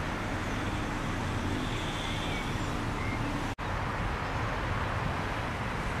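Wind blowing across an open field and buffeting the microphone: a steady rushing with a heavy low rumble. The sound cuts out for an instant just past halfway.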